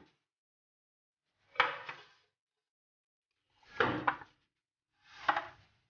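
Plastic tray being put down and shifted on a stone kitchen countertop: three short clattering knocks about two seconds apart.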